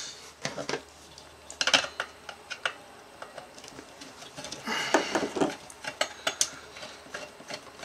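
Irregular small metallic clicks and clinks of a screwdriver and small screws, spacers and washers on the aluminium frame of an aircraft instrument being dismantled, with a denser run of clicks about five seconds in.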